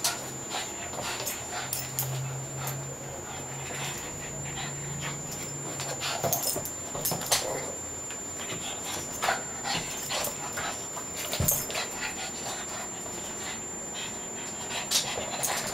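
Two puppies play-wrestling: scuffling with scattered sharp clicks and knocks, over a steady high-pitched whine.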